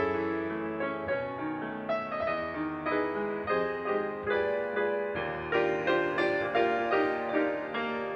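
Solo jazz piano on a grand piano: a melody over chords, the notes struck in quick succession and left to ring.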